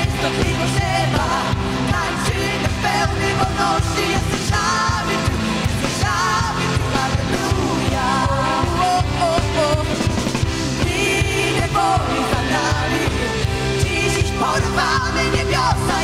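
Live band playing an upbeat song with women singing the lead, over a stage piano and electric guitar with a steady beat.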